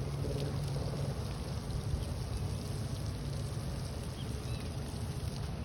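Steady rumble of wind and moving water, with a couple of faint bird chirps near the end.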